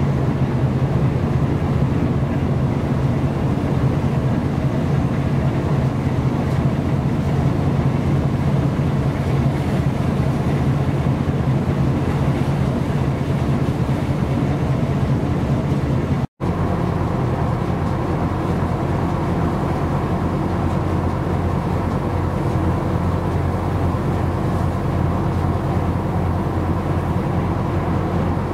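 Steady low drone of a ship's engine with a constant hum, over a hiss of wind and sea. The sound cuts out for an instant about sixteen seconds in, and the hum comes back a little lower in pitch.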